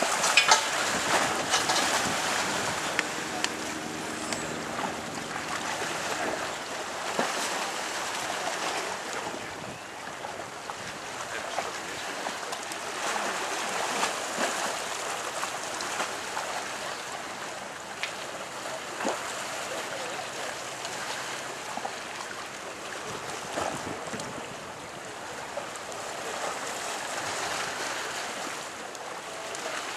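Wind and choppy water rushing past a moving boat, with a faint engine hum at times.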